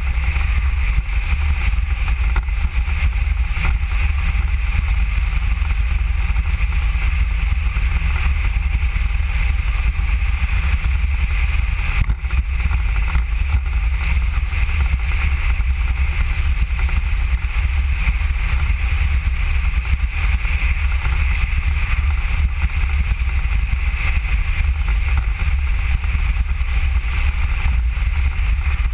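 Mango velomobile riding along a road: a steady low rumble with a hiss on top from its rolling and the wind over the shell, unbroken throughout.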